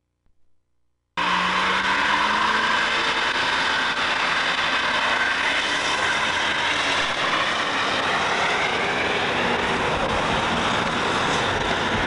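A vehicle doing a burnout: the engine is held at high revs while the spinning rear tyres squeal and smoke. It starts abruptly about a second in and carries on steadily.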